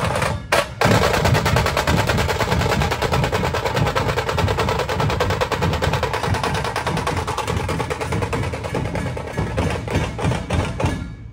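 Dhol-tasha ensemble playing: rapid, sharp tasha rolls struck with sticks over heavy dhol beats. A brief double break comes under a second in, then the playing stops near the end.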